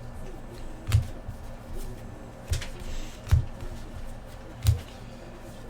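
Trading cards being flipped through and set down on a table, with four soft taps at uneven spacing and light rustling between them.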